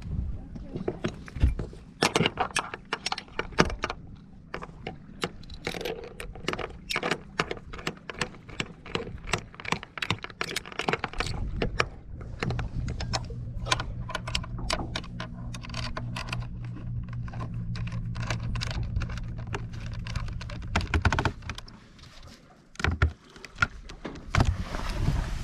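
Metal snap shackles and sheet blocks clinking and clicking against deck padeyes and the teak deck as they are clipped on to rig the gennaker sheets: many sharp clinks one after another. A low steady hum runs underneath from about halfway until near the end.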